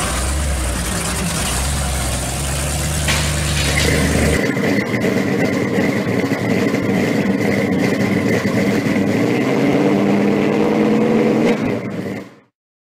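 Supercharged hot-rod engine of a 1955 Chevy Nomad running as the car rolls slowly past with a deep rumble. About four seconds in the sound switches abruptly to a different engine recording without the low rumble, which cuts off suddenly near the end.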